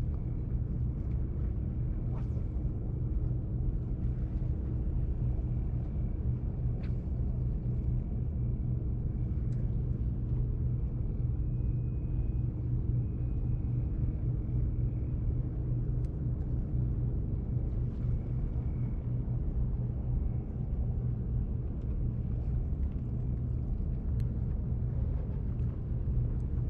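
A steady low engine-like drone with a constant hum.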